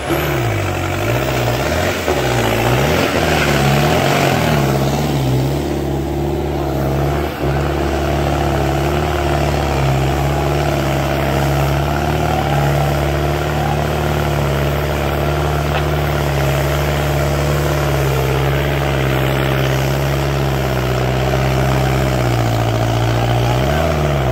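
Sonalika tractor's diesel engine working hard under a heavy pull. Its pitch rises and falls for the first few seconds, then it settles into a steady, loud drone.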